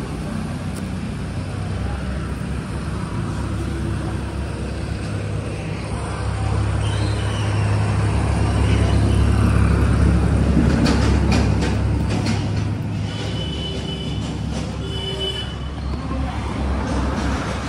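Street traffic: a steady low rumble of motor vehicles that swells and then fades as one passes close in the middle.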